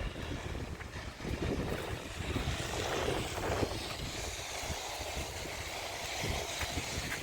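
Low, fluttering rumble of wind on the microphone, with a steady hiss that builds from about two seconds in.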